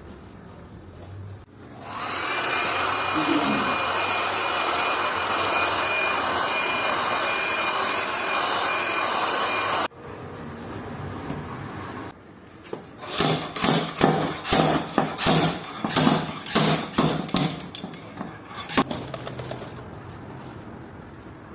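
Workshop tool noise during dent repair on a car fender. A steady whooshing machine noise with a faint thin whine runs for about eight seconds and cuts off abruptly. Later comes a run of rhythmic rubbing or scraping strokes, about two a second.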